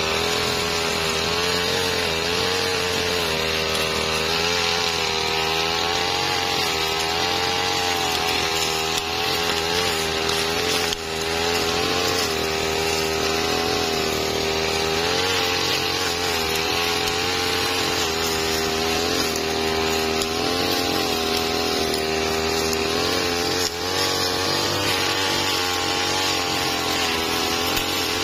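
Backpack brush cutter's small petrol engine running at high speed, its pitch wavering up and down as the modified blade cuts weeds at ground level, with a brief dip twice.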